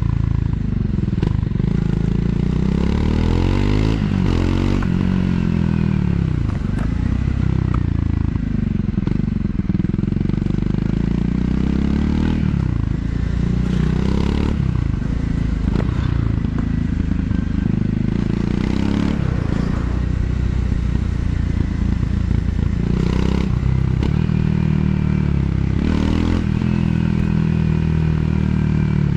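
Triumph Scrambler 400 X's single-cylinder engine on the stock exhaust, riding downhill with the revs repeatedly falling and rising between throttle and engine braking, under wind noise on the microphone.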